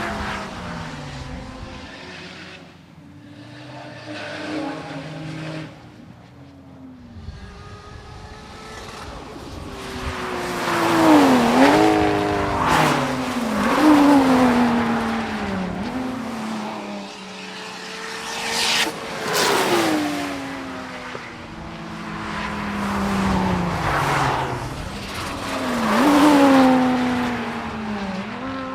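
Performance cars lapping a racetrack, several passing in turn: engines revving hard through the gears, their pitch dropping away as each goes by, with the loudest passes about a third of the way in and again near the end.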